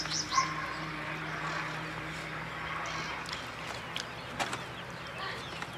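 Outdoor background: a bird's quick run of high chirps right at the start and fainter bird calls later, over a steady low hum. A couple of short sharp clicks come about four seconds in.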